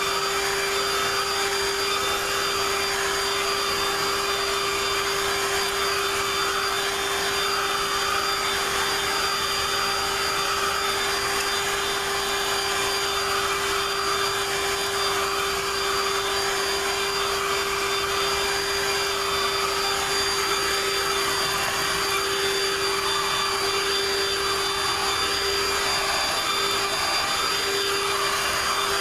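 Dirt Devil Quick Flip Pro cordless handheld vacuum running with its powered brush head pushed over a carpeted car floor mat. It gives a steady motor whine over the hiss of rushing air.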